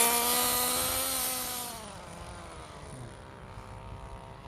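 Nitro RC car's small glow-fuel engine running at high revs, loudest at first, then dropping in pitch and fading away about two seconds in.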